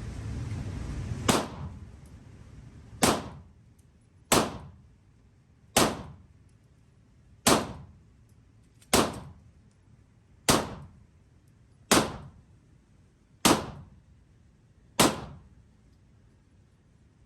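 Ten gunshots fired at an even pace, about one every second and a half, each followed by a short echoing tail.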